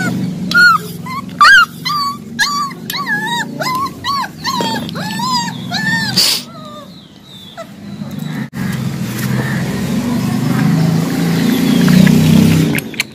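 Puppy whimpering in a quick run of short, high cries that rise and fall in pitch, two or three a second, for about six seconds. Then a few seconds of low rustling and handling noise close to the microphone.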